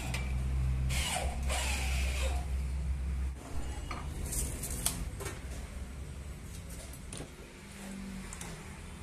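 Electric hand drill running as it bores into an aluminium profile, stopping after about three seconds; then light clicks and knocks as aluminium sections are handled.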